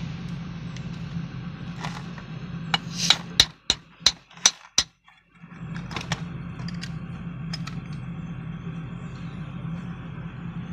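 A quick series of sharp metal clinks from hand tools working on the fuel-system fittings, about seven strikes near the middle, over a steady low machine hum that briefly drops out.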